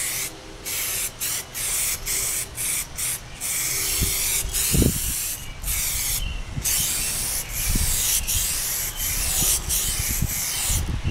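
Aerosol spray can of primer hissing as it is sprayed onto a motorcycle fairing panel, in short spurts and longer passes of a second or two with brief breaks between. There is a low bump about five seconds in.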